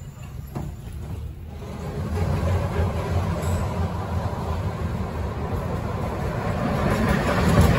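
Tatra T3 trams running on street track: a low rumble of steel wheels on the rails that grows steadily louder from about two seconds in as a coupled pair of trams approaches.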